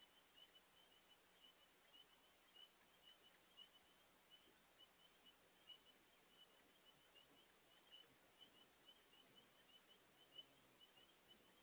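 Faint, steady rush of a large spring running far below, with a soft, regular series of short high chirps, about three or four a second.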